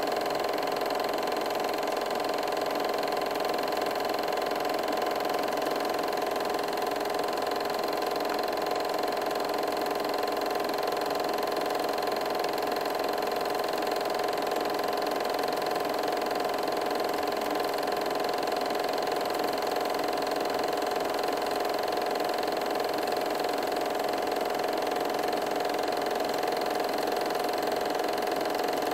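8mm film projector running: an even mechanical whir with a constant hum that does not change.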